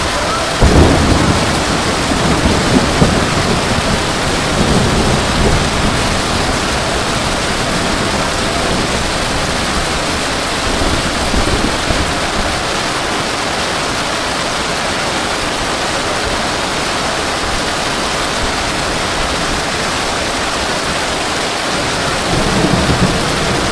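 Heavy rain pouring down steadily, a dense even hiss, with a few low rumbles in the first few seconds and again near the end.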